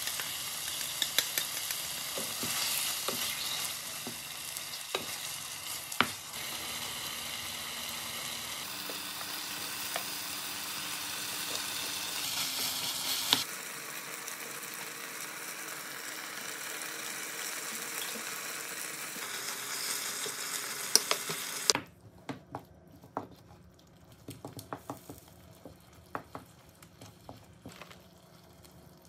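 Meat sizzling in a non-stick frying pan with seasoning sauce as a wooden spoon stirs it, with clicks and scrapes of the spoon against the pan. About 22 seconds in, the sizzling cuts off abruptly, leaving only faint scattered taps.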